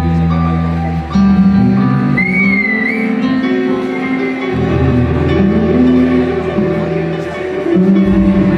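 Live band music from a full group: bass and synth chords with guitar, a strong bass line coming in at the start, and a flute sliding through an ornamented phrase about two seconds in.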